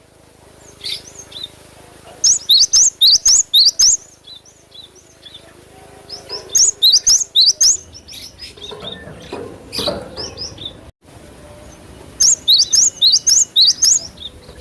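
A cinereous tit (gelatik batu) sings in repeated runs of quick, high, rising chirps. Four runs of several notes each come about every three to four seconds, with quieter gaps between. A low, muffled rustle comes about two-thirds of the way through.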